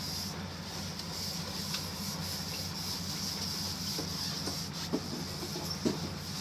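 Sportfishing boat's engines running steadily, a low drone under an even hiss of wind and water, with a couple of light knocks near the end.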